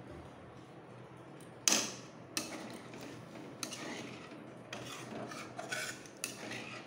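Metal spatula stirring a watery spice masala in an aluminium kadhai, scraping and knocking against the pan. A sharp clank comes about a second and a half in, followed by a run of uneven scrapes.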